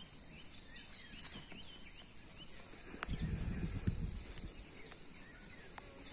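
Faint outdoor ambience with small birds chirping on and off, and a brief low rumble on the microphone about three seconds in.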